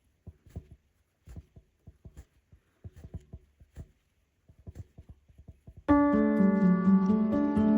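Faint, irregular soft pops and ticks of a rug hook pulling wool strips up through the backing. About six seconds in, loud instrumental background music starts abruptly and drowns them out.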